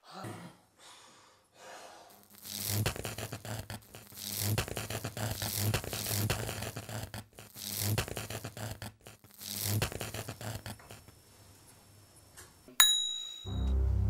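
Film score with a scratchy, pulsing rhythm over a low hum, swelling every second or two. Near the end it gives way to a sharp bell-like ding that rings for about a second, followed by deep sustained bass notes.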